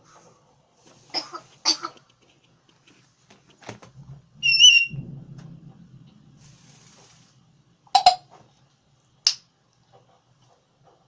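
African grey parrot imitating a cough. There are two short coughs a little over a second in, a short clear whistle with a small wobble about four and a half seconds in, then a low rumble that fades out, and two more sharp bursts near the end.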